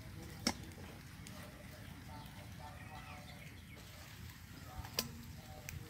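Outdoor ambience with faint, short bird calls repeating, and two sharp knocks, one about half a second in and a louder one near the end.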